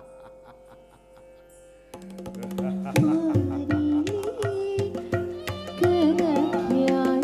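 Carnatic dance music accompanying Bharatanatyam, faint at first. A steady drone comes in about two seconds in, and about a second later a gliding melody and regular drum strokes join it.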